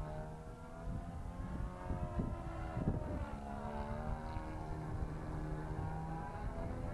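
Glow-fuel (nitro) engine of a radio-controlled model airplane running in flight, its whining note sliding down through the middle and climbing again as the plane passes and turns overhead.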